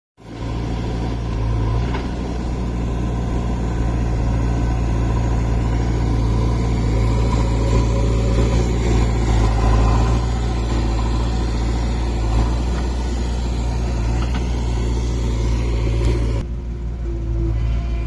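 Heavy diesel engines idling steadily with a deep, low rumble. About sixteen seconds in, the sound cuts abruptly to a quieter, thinner hum.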